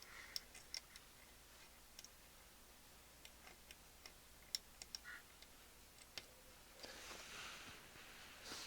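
Faint, scattered small clicks and ticks of transistors being handled and their leads fitted into a circuit board, with a soft rustle of handling near the end.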